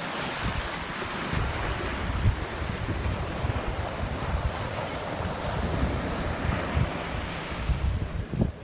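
Ocean surf breaking and washing up the sand in a steady hiss, with gusts of wind buffeting the microphone in irregular low rumbles.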